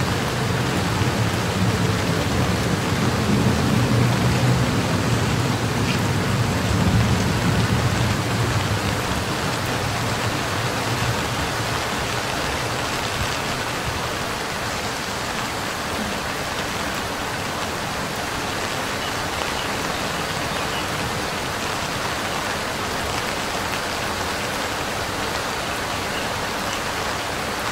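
Steady rain falling. Under it a low hum can be heard for about the first ten seconds, then it fades away.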